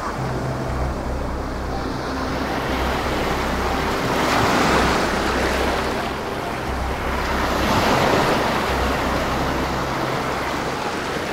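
Ocean waves breaking and washing up the beach, swelling twice about three seconds apart, with wind rumbling on the microphone.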